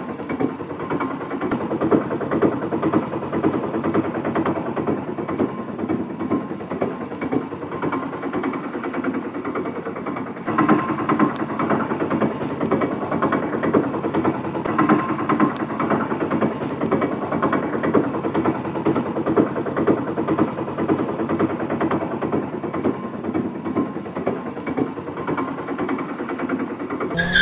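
A small motor running steadily with a fast, buzzy texture, a little louder from about ten seconds in, then cutting off suddenly.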